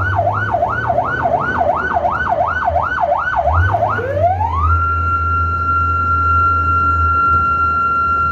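Electronic siren of an emergency vehicle on a call, heard from inside it: a fast up-and-down yelp, about three cycles a second, that about four seconds in sweeps up into one steady high tone and holds it. A low engine hum runs underneath.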